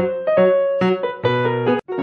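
Background music: a piano-style keyboard playing a melody of struck notes, about two to three a second, breaking off briefly near the end.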